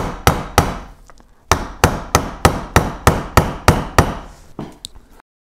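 A soft-faced mallet strikes the handle of a bearing driver in a steady run of sharp blows, about three a second, with a short pause about a second in. The blows drive a freezer-chilled 6004 ball bearing, without heat, into the snowblower's wormcase bore. They tail off into lighter taps near the end.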